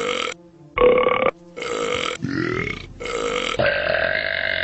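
A run of human belches, about five short ones in quick succession and then one long, drawn-out belch lasting about two seconds.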